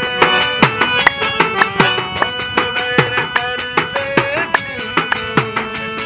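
Folk instrumental interlude: a keyed string instrument plays a melody over held ringing tones while a hand-held frame drum is struck about two to three times a second, each stroke dropping slightly in pitch.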